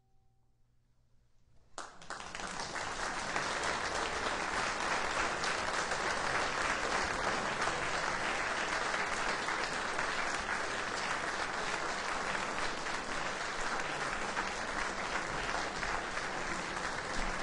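A faint ringing tone dies away, then a concert audience breaks into applause about two seconds in, full and steady from then on.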